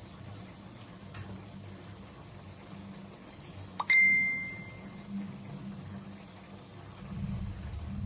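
A single bright ding about four seconds in: a clear high tone that rings for about a second and fades. A low steady hum sits underneath.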